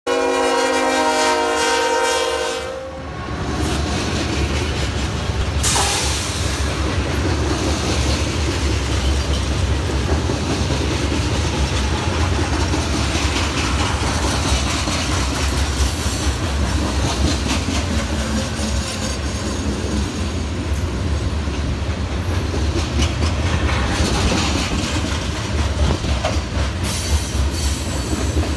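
Freight locomotive horn sounding several tones at once for about three seconds, then cutting off. After that, a long freight train of steel-coil flatcars rumbles and clatters past on the rails, with a sharp metallic clank a few seconds after the horn stops.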